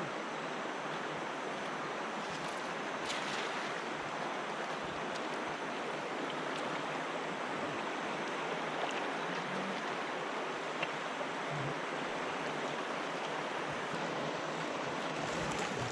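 Swift river water rushing steadily.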